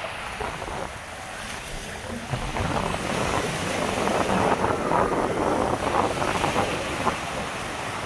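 Small sea waves breaking and washing up on a sandy beach, with wind on the microphone; the surf grows louder about two and a half seconds in.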